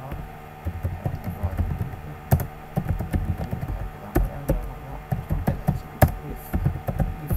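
Typing on a computer keyboard: irregular keystrokes starting about half a second in, a few of them sharper and louder, over a steady low hum.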